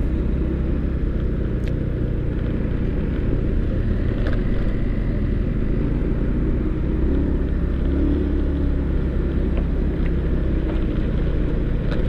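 Steady low rumble of a vehicle on the move: engine and road noise, with a few light clicks.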